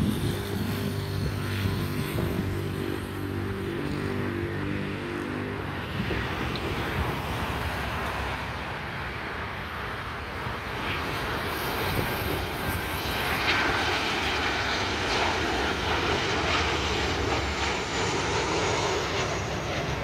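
Jet engine noise of a Boeing 737-800 on final approach to land, its CFM56-7B turbofans at approach power: a steady rumble that grows louder and brighter in the second half as the airliner comes close and passes.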